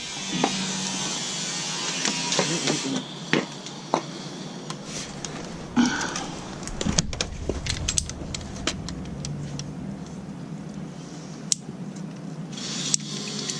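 Irregular clicks, knocks and rattles of pipe fittings and tools being handled during plumbing work, over a steady background hiss.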